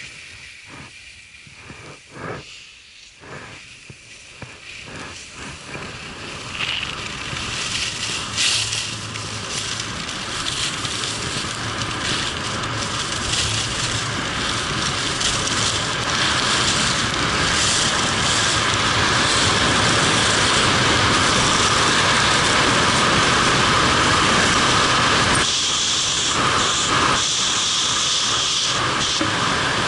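Wind rushing over a helmet-mounted camera's microphone mixed with skis scraping over hard-packed, tracked snow. It starts quiet with a few scattered ticks, then builds to a loud, steady rush as the skier gathers speed downhill.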